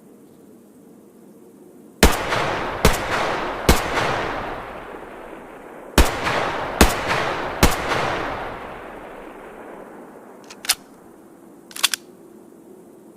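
H&K MP5 submachine gun firing six single shots in two groups of three, the shots a little under a second apart, each group trailing off in a long echoing tail. Two short clicks follow near the end.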